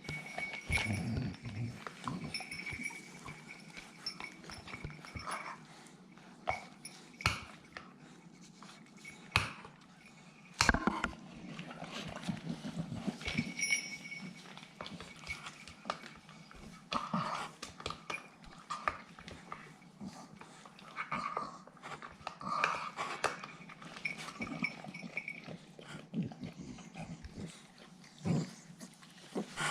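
Staffordshire bull terrier puppies growling and yapping in rough play, in short irregular bursts, with scattered sharp knocks and scuffling.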